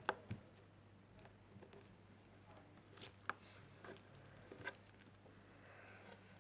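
Near silence with a few faint, soft clicks and squishes of homemade slime being handled, the most distinct just at the start and about three seconds in.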